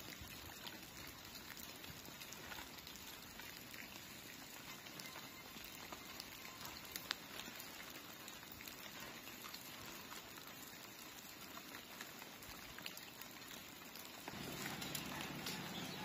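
Faint, steady patter of raindrops dripping onto leaves and the ground, with scattered small ticks. A low hum joins in near the end.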